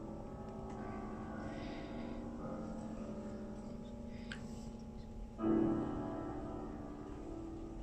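Several bells ringing together, a sustained chord of tones slowly dying away, then struck again about five and a half seconds in and ringing on with a long decay.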